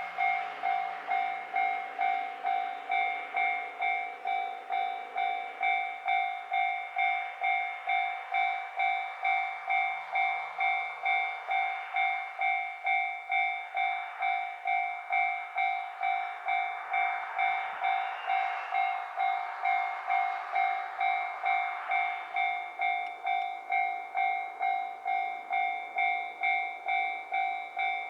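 Japanese level-crossing warning bell ringing steadily, electronic dings about twice a second, as a JR Hokkaido KiHa 261 series diesel express runs through the crossing; the train's running noise swells past the middle and eases off after.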